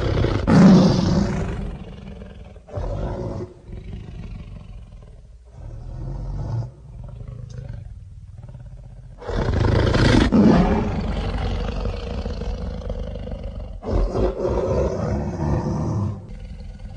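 Tarbosaurus roar sound effects: a series of deep roars and growls of differing lengths. A loud roar comes at the start, then two short ones, a long roar a little past halfway, and another roar after it.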